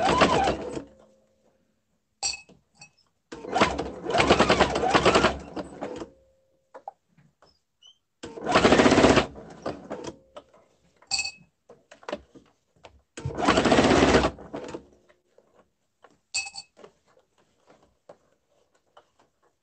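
Domestic electric sewing machine stitching around a quilted fabric bowl cover, running in short bursts of about two seconds, stopping and starting again. Short, high clicks fall in the pauses between runs.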